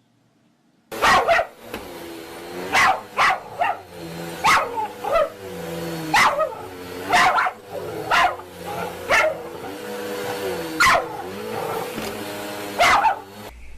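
A dog barking, about a dozen sharp barks at an irregular pace, starting about a second in, over a steady pitched hum.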